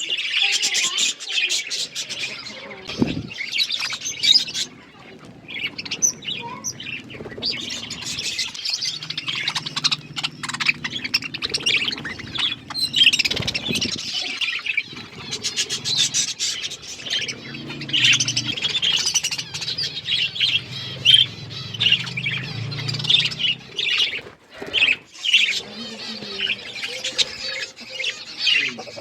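A flock of budgerigars chirping and chattering continuously, many birds calling over one another, with occasional wing flutters. A low steady hum runs underneath from about 9 to 23 seconds in.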